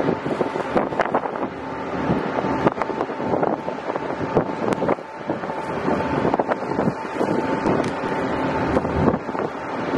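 Wind buffeting the microphone over the steady running of a small boat's engine, with irregular short knocks.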